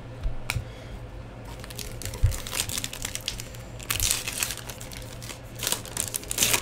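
Trading card packaging crinkling as cards are handled, in several short bursts of rustling with a click about half a second in.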